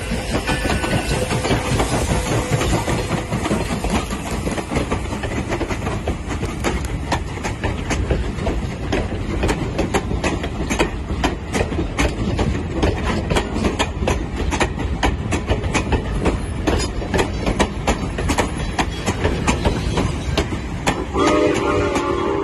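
Railway passenger coaches rolling past close by behind a steam locomotive: a steady rumble with wheels clicking and clattering over the rail joints. About a second before the end, a steam whistle starts to blow.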